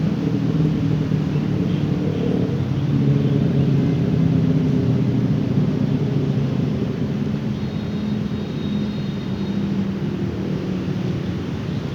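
Steady low hum of vehicle engines, with several pitched drones that drift slightly, like road traffic close by.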